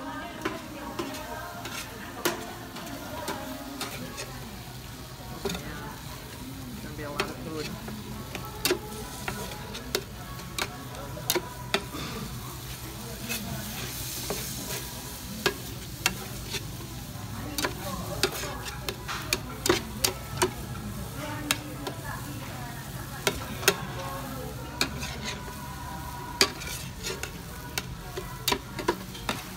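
Dakgalbi (spicy chicken) and fried rice sizzling in a large pan on a tabletop burner while a spatula stirs and scrapes it, with frequent sharp clicks of the spatula against the pan. A steady low hum runs underneath.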